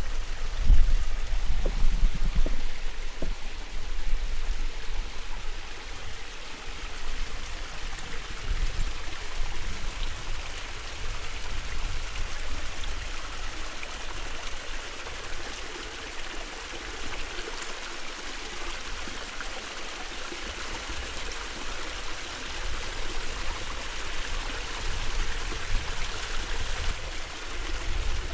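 Water running steadily, like a stream or trickle. A low rumble sits under it in the first few seconds, then fades.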